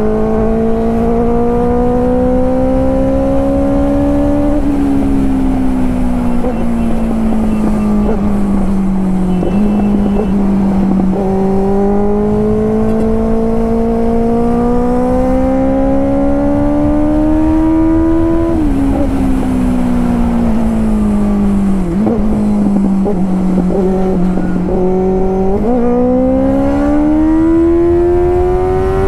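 Benelli 600i's inline-four engine through a loud aftermarket SC Project exhaust, under way. The revs climb steadily, dip sharply several times at shifts or throttle lifts, and climb again, with wind noise low underneath.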